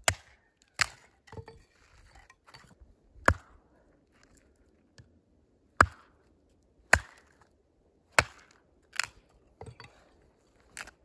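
Firewood being chopped: about ten sharp, single blade strikes into wood, spaced unevenly a second or two apart.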